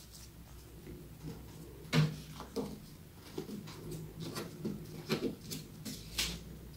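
Paper and card being handled on a table: rustling, creasing and light taps as a pop-up card is pressed, opened and folded, with a sharp knock about two seconds in as the loudest sound. A low steady hum lies underneath.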